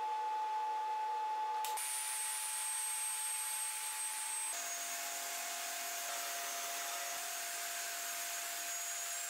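Bench table saw running with a steady motor whine while its blade cuts the central kerf through the plywood sled base; the whine steps to a lower pitch partway through.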